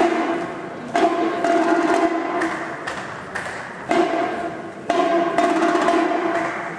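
Marching band playing: sharp percussion hits about once a second, unevenly spaced, each with a held brass-like tone ringing under it.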